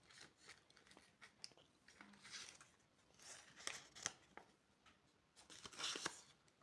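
Faint crinkling and crackling of candy packaging being handled and opened, with scattered small clicks and three short rustling swells.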